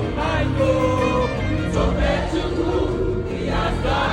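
Gospel choir singing with instrumental backing.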